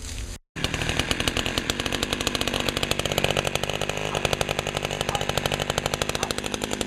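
Sears Craftsman 3.75 chainsaw's small two-stroke engine running with a rapid, even firing beat, starting abruptly about half a second in.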